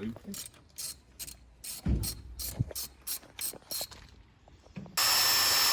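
A hand ratchet clicking in a steady run of about two to three clicks a second, then a high-pitched power tool starts up and runs steadily near the end.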